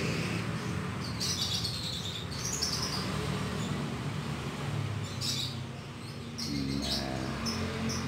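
Canaries chirping in short, high bursts, a handful of calls spread through the clip, some falling in pitch, over a low steady hum.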